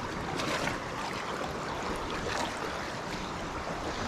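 Steady rush of river water running through rocky rapids, with a few light splashes close by.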